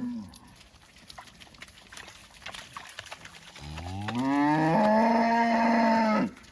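Dexter cattle mooing: one long moo that climbs in pitch, holds steady for over a second and cuts off sharply near the end, just after the tail of an earlier moo. Light rustling and clicks in between.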